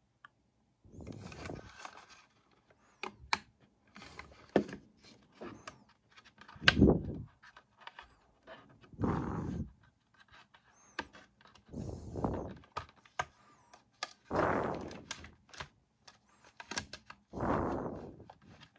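Plastic parts of a Bodum coffee grinder's housing rubbing and clicking as they are worked into place by hand, with a few sharp clicks. Heavy breaths close to the microphone swell every two to three seconds.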